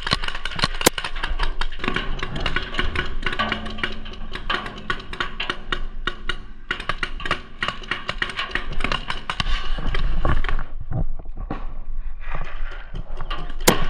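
Rapid, irregular popping from several low-impact paintball markers firing at once. The volley is dense and thins out about ten seconds in.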